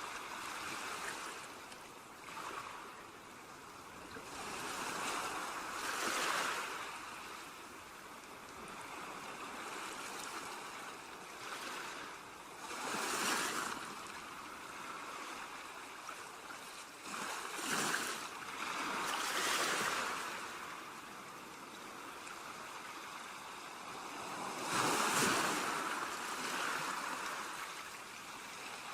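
Ocean surf: waves breaking and washing up the shore, the hiss swelling and fading every several seconds.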